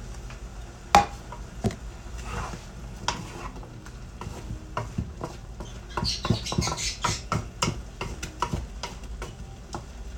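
Wooden spatula stirring chicken, carrot and potato pieces in a frying pan, with irregular knocks and scrapes against the pan, busiest from about six to seven and a half seconds in, over a light sizzle.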